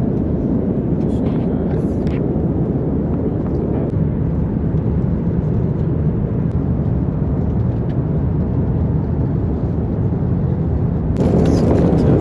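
Airliner cabin noise in flight: a steady, low rush of engine and air noise. About a second before the end it steps up a little louder and fuller.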